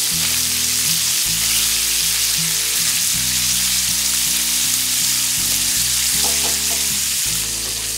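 Small fish fillets sizzling in olive oil and butter in a cast-iron skillet, a steady hiss, with a spatula moving and turning them in the pan.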